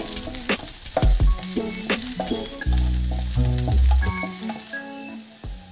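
Chopped ginger, garlic and spring onions sizzling in hot oil in a nonstick pan, stirred with a spatula that gives sharp scrapes and taps against the pan.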